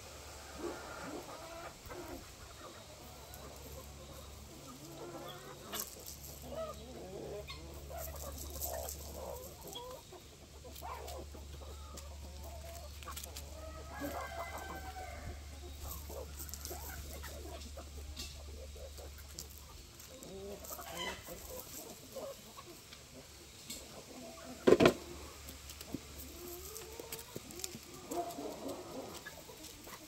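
A flock of free-range chickens clucking, with a rooster crowing about halfway through. A low steady hum runs underneath for most of it, and a single sharp knock sounds about 25 seconds in.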